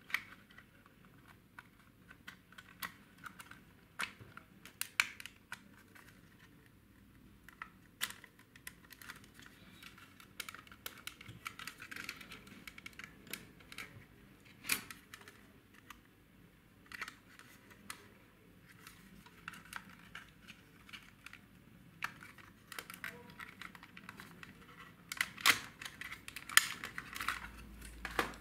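Small plastic clicks and taps as a white plastic body shell is fitted onto and taken off a 1/28-scale RC drift car chassis by hand, with light handling rustle. A denser run of louder clicks comes near the end.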